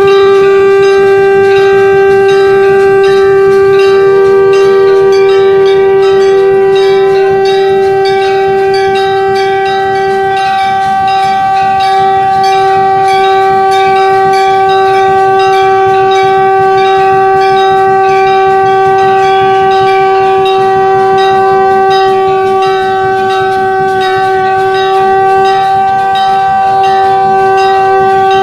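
Conch shell (shankh) blown in one long, steady, loud note with many overtones, held without a break. Behind it a temple bell is rung in a quick, even rhythm.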